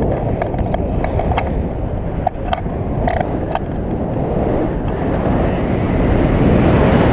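Wind rushing over the microphone of a pole-mounted camera in flight under a tandem paraglider, a steady loud buffeting noise. A few light clicks come through in the first half.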